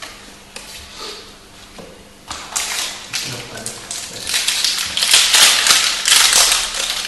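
Foil wrapper of a trading-card booster pack crinkling and tearing as it is opened, getting louder and denser in the second half. Before that come a few light taps of cards being set down on the table.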